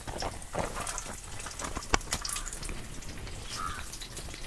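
Mustard seeds and curry leaves sizzling and crackling in hot oil in a wok as a tempering, with scattered small pops and one sharper click about two seconds in.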